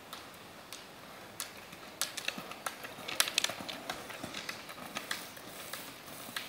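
Roller-ski pole tips striking asphalt, a series of sharp clicks that grows loudest about three seconds in as the skier passes close, then fades.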